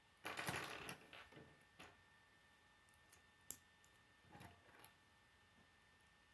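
K'nex plastic pieces handled and snapped together: a burst of rattling clatter about half a second in, then scattered light clicks with one sharp snap around the middle, and a short clatter later on.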